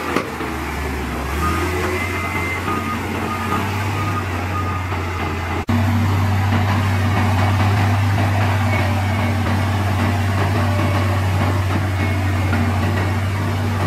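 Heavy diesel engines of earthmoving machines running steadily, with a reversing alarm beeping faintly in the first few seconds. About five and a half seconds in, the sound breaks off and jumps to a louder, steady engine drone.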